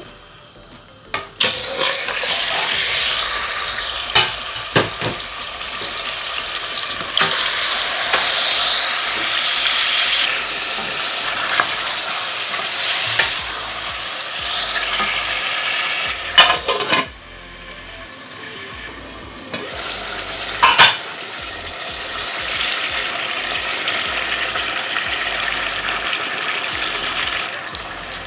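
Raw meat pieces frying in hot oil in a steel pot: a loud sizzle starts about a second in. A wooden spoon stirs and knocks against the pot throughout. The sizzle drops back for a couple of seconds past the middle, then picks up again.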